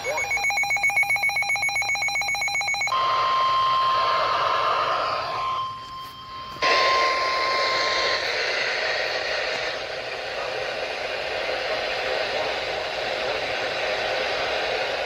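Radio emergency alert tones received over static. First comes about three seconds of a rapidly pulsing, buzzy multi-pitch tone. Then a steady single tone near 1 kHz sounds for about five seconds, matching the 1050 Hz warning alarm of NOAA Weather Radio, while the radio hiss drops out briefly and returns.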